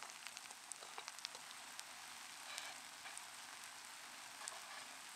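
Hash browns and eggs frying in a pan: a faint, steady sizzle with scattered small crackles and pops.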